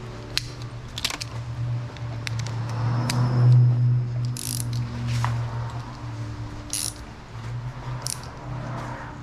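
Metal clicks and clinks of a socket ratchet and extension being fitted and worked to loosen a car's oil filter, over a steady low hum.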